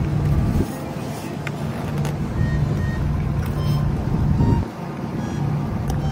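Steady low mechanical hum like an idling engine, with rumble beneath it; it drops away briefly twice.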